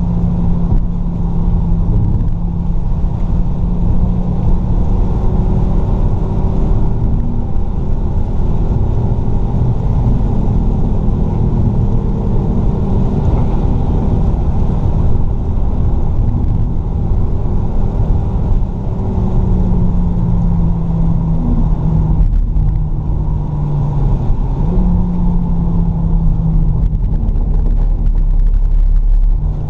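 Fiat Stilo Abarth's five-cylinder engine running hard on a lap, heard from inside the car over a steady low rumble. Its pitch rises and falls with the gears, dropping sharply about two-thirds of the way in and stepping back up a few seconds later.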